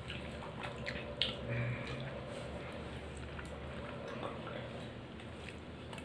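Eating rice by hand from a ceramic plate: fingers squishing and mixing rice with dal, with small wet clicks, the sharpest about a second in, and chewing.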